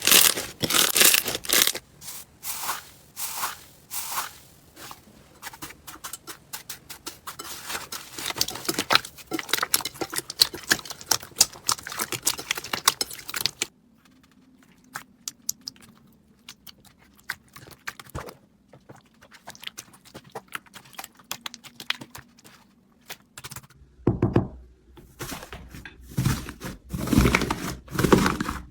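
Slime being worked by hand: dense runs of small crackling pops and clicks, thinning to sparse clicks over a faint hum about halfway through, then louder crackles and low thuds near the end.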